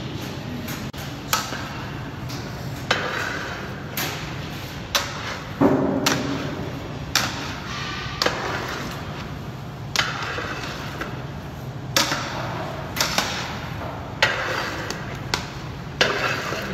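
Long-handled spatula stirring a thick mass of grated carrots in a large steel cooking pan, knocking and scraping against the pan's side about once a second.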